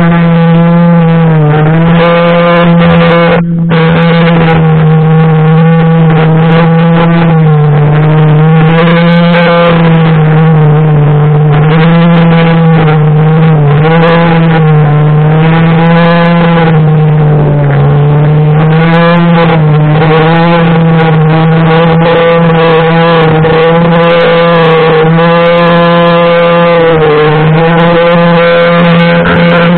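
String trimmer running steadily at full speed, its motor and spinning line making one loud droning note that dips slightly in pitch over and over as the line bites into grass, then recovers.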